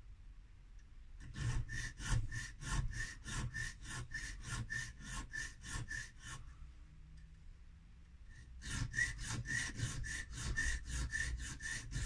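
Fine, thin file rasping in quick back-and-forth strokes, about three or four a second, as it deepens the grooves of a worn metal pepper-mill grinding wheel to sharpen it. Each stroke carries a thin high note. The strokes come in two runs with a pause of about two seconds between them.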